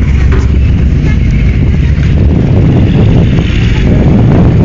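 A four-wheel-drive truck engine running steadily and loud.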